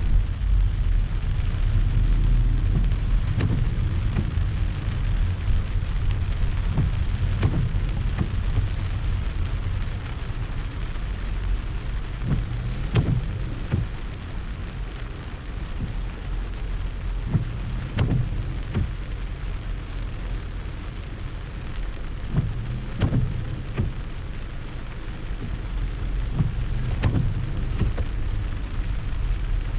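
Heavy shower rain falling, a continuous noisy wash with a strong low rumble, broken by many scattered sharp taps of drops striking close by.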